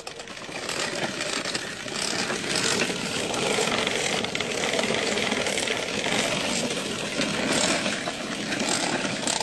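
Plastic toy dump trucks rattling and clattering as they are towed over a dirt road, a steady rolling noise of wheels and loose plastic on the ground.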